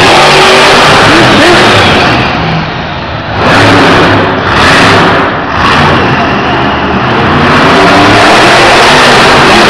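Monster truck's supercharged V8 engine revving hard, very loud. The throttle eases off briefly about two seconds in, then blips twice before the engine runs flat out again.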